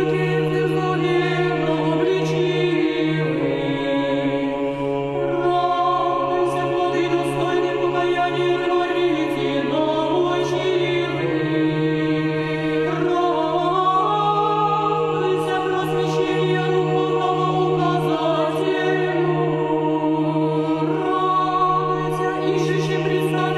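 Choir singing slow Orthodox church chant, with a low note held underneath while the upper voices move from note to note.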